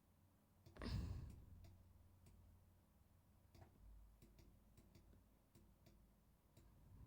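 Near silence with faint scattered clicks, and one brief soft thump about a second in.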